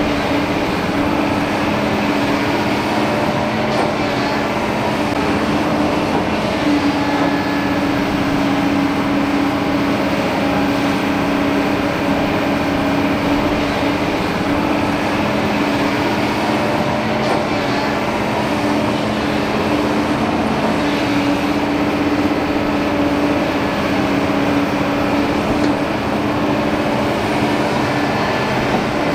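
Kobelco crawler excavators' diesel engines running steadily while digging and moving dirt.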